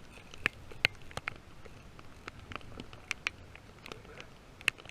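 Sharp clicks and snaps at irregular intervals, about a dozen of them, over a quiet background.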